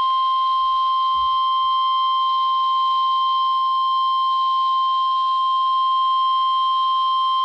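NOAA Weather Radio 1050 Hz warning alarm tone: one long, unbroken steady beep played through a RadioShack 12-254 weather radio over a light static hiss. It is the signal that a warning, here a severe thunderstorm warning, is about to be read.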